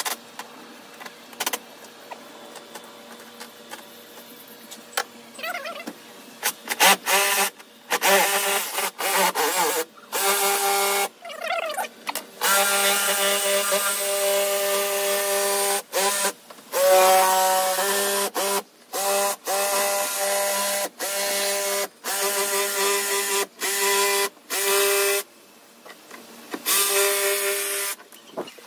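Cordless power tools, a drill and a Makita jigsaw, cutting a round opening for a subwoofer in a boat's seat top. After a few seconds of quiet handling clicks, the tool runs with a steady motor whine in repeated stop-start bursts, each a few seconds long, broken by short pauses.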